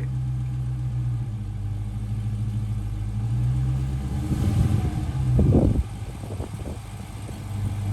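Dodge Hellcat Redeye's supercharged 6.2-litre HEMI V8 running at low speed as the car creeps forward onto ramps; about four seconds in the engine note swells louder for under two seconds, then drops back suddenly to a steady low hum.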